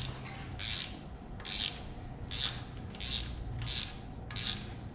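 Hand ratchet worked back and forth on an exhaust manifold stud of a Ford 302 V8, the pawl rasping on each return swing, about six even strokes a bit under a second apart. The stud is unscrewing from the head along with its nut.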